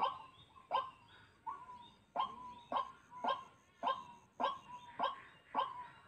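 White-breasted waterhen (dahuk) calling: a short call with a sharp start and a trailing tail, repeated steadily about twice a second.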